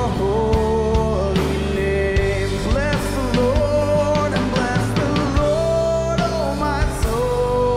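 Live worship song played on acoustic guitar and drum kit, with a man's voice holding long, sliding melody notes over the steady beat.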